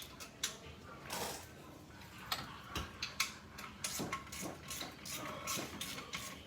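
Metal hand tools clicking and clinking in short, irregular knocks as the bolts of a supercharger bracket are worked and tightened, with a ratchet-like run of clicks.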